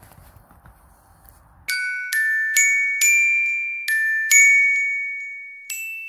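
Faint background noise, then background music begins about two seconds in: a slow melody of bright, bell-like struck notes, each ringing out and fading.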